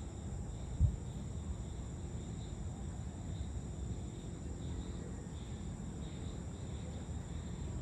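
Outdoor ambience of insects such as crickets trilling steadily in high, even tones over a continuous low rumble, with one brief low thump just under a second in.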